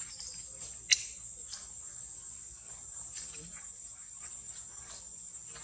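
Insects, crickets by the tag, keeping up a steady high-pitched drone. A sharp click sounds about a second in and a fainter one about half a second later.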